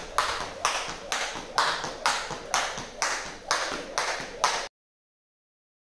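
Skipping with a jump rope on a tiled gym floor. On each turn there is a sharp slap as rope and feet meet the floor, about two a second in an even rhythm, each slap trailing off in a short hiss. The sound then cuts off suddenly.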